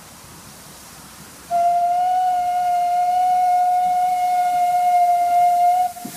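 Steam locomotive's whistle blowing one long, steady blast on a single note, starting about a second and a half in and cutting off just before the end.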